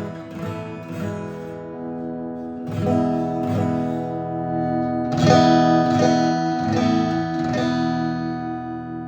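Steel-string acoustic guitar strummed in chords, about ten strokes at uneven spacing, with the last chord left to ring out and fade near the end.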